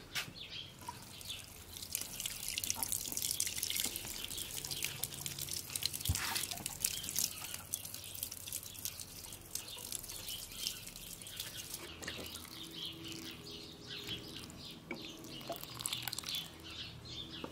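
Water pouring from a plastic watering can onto plants and soil in a planter: a continuous spattering trickle, heavier for the first several seconds and lighter later.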